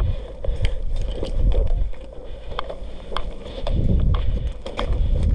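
Low rumble of wind and movement on a body-worn camera as the player moves, with scattered sharp irregular clicks and knocks.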